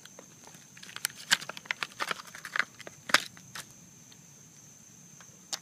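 Crinkles and sharp clicks of handling, as an E3 spark plug is taken out of its plastic packaging, coming in a quick irregular run for a couple of seconds, then one more click near the end.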